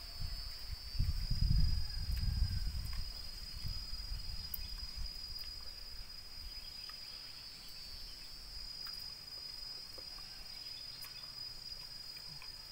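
Steady, high-pitched insect drone that holds one pitch throughout, with low rumbles during the first three seconds.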